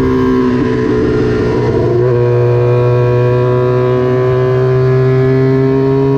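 Vintage racing motorcycle engine under throttle, shifting gear about two seconds in, then pulling steadily with the pitch slowly rising.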